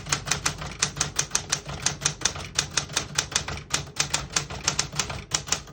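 1968 Smith-Corona Super Sterling manual portable typewriter being typed on steadily, its typebars striking the platen in a quick, even run of clacks, about seven a second.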